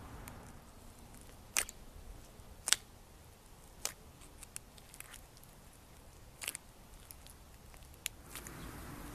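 Crunchy slime being pressed and worked, giving scattered sharp crackles and pops a second or more apart, the loudest near three seconds in.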